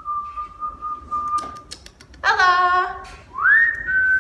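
A person whistling long, steady single notes to call a cat; the second note rises up into its pitch and holds. A short high-pitched voiced call and a few sharp clicks come between the notes.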